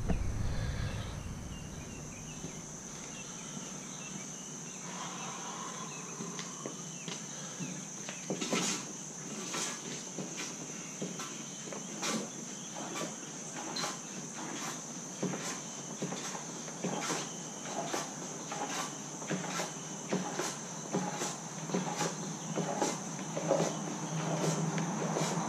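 Irregular clicks and light knocks, coming roughly once a second from about a third of the way in, as parts are handled on a removed plastic fuel tank, over a steady high insect drone.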